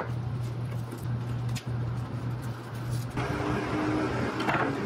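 Green painter's tape being peeled and pulled off a small wooden board, the tearing noise growing brighter about three seconds in, over a steady low hum.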